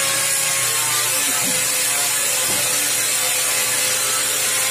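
Angle grinder with an abrasive disc running steadily against the edge of a stainless steel sheet: a constant motor whine under a harsh hiss of abrasive on steel.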